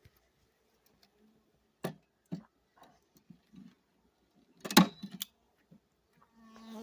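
A few separate clicks and knocks as beehive parts are handled, the loudest one a little under five seconds in.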